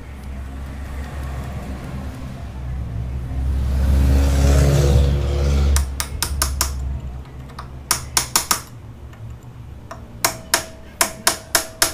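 Hammer tapping a punch against a scooter's steering-stem lock nut to tighten it: sharp metallic strikes in short runs, faster and with a faint ring near the end. Before the strikes start, about six seconds in, an engine hum rises and then cuts off.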